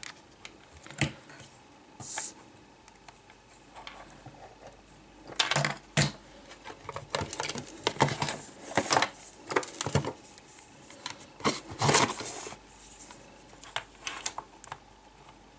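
Irregular clicks, taps and short scrapes of small hand tools working on an electric-bike motor controller's circuit board, as a blob of solder that shorts the board is cleared away.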